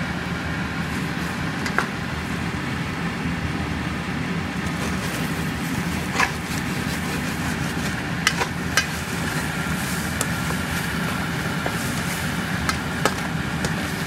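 Eggs frying in a stainless steel pan, stirred and scraped with a spatula, over a steady hum. The spatula knocks sharply against the pan about five times.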